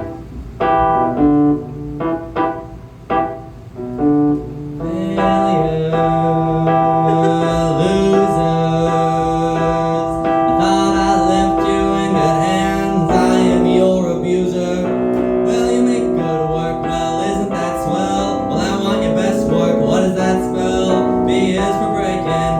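Piano-sounding keyboard playing a song's instrumental introduction: short separate chords with gaps for about the first five seconds, then fuller, continuous accompaniment with held notes.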